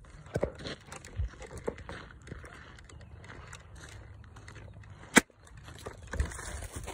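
Footsteps crunching on dry ground strewn with pine needles and cones, with scattered small knocks and one sharp snap about five seconds in.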